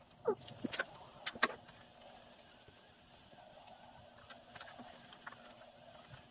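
A few light knocks and clicks and a short squeak in the first second and a half, then faint scattered handling noises, as closed-cell foam bulkhead insulation is handled and offered up inside a classic Mini's bare engine bay.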